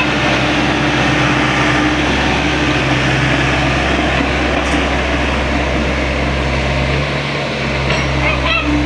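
Excavator's diesel engine running at a steady speed, with broad mechanical noise over its low hum. A few short, high squeaks come near the end.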